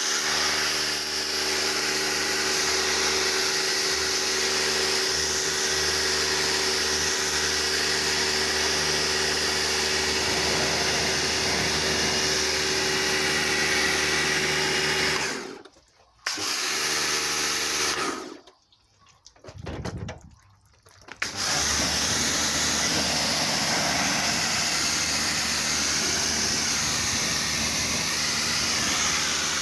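Pressure washer running, its motor and pump humming steadily under the hiss of the water jet spraying. The sound cuts out abruptly twice around the middle, once briefly and once for about three seconds, then comes back at full strength.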